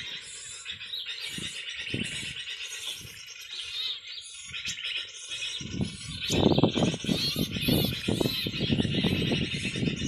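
Birds chirping and calling continuously. From about six seconds in, rustling and handling noises of leafy branches being pulled grow louder than the birdsong.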